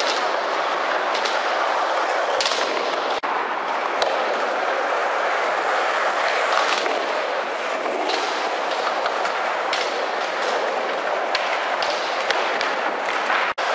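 Skateboard wheels rolling hard over a smooth floor and wooden ramps as a steady rush, with several sharp clacks of boards popping and landing scattered through.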